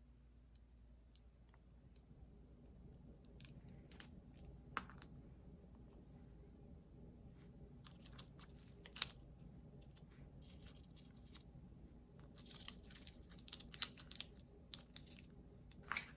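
Small plastic clicks and taps from handling miniature toy-kit pieces, scattered and quiet, with a few sharper knocks and a denser run of clicks and a soft rustle near the end.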